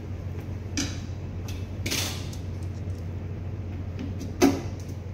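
A screwdriver working the screws of a JRC radar display console's control panel: a few short metallic clicks and scrapes, a longer scrape about two seconds in, and the sharpest click near the end. A steady low hum runs underneath.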